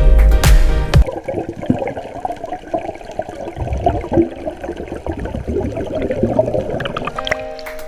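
Background music with a heavy bass beat ends about a second in, followed by the rushing, churning noise of flowing water.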